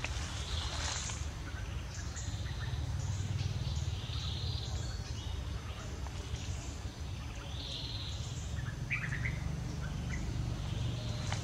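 Outdoor ambience of birds chirping: scattered short calls and whistles, over a steady low rumble and a faint steady high tone.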